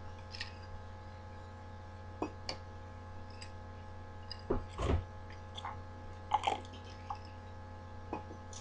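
Scattered small knocks, clicks and rubs of the recording laptop being handled, over a steady electrical hum.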